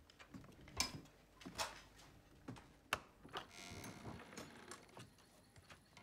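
A few sharp knocks and clicks, about four in the first three and a half seconds, then a short stretch of soft rustling: objects being handled in a quiet room.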